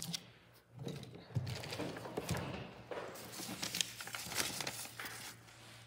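Irregular light clicks and rustling that come and go, over a low steady hum.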